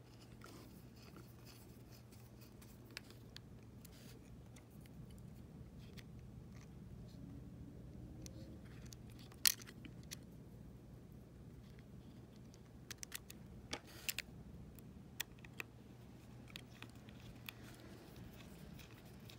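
Small screws, a slotted screwdriver and the Apple TV's plastic and metal parts being handled, giving scattered light clicks and taps, the sharpest about halfway through and a quick cluster a few seconds later, over a faint steady hum.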